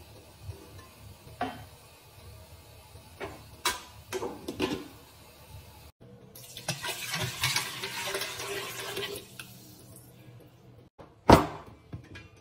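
Water poured from a jug into a stainless steel pot for about three seconds, after a few knocks of the pot and meat going in. Near the end comes one sharp metallic clack as the pressure-cooker lid is set on the pot.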